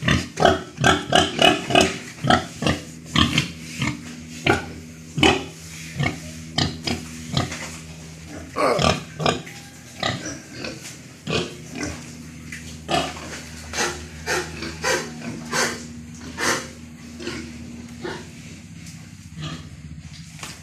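Domestic pigs grunting in short, repeated grunts, about three a second at first and more spaced out later, over a faint steady low hum.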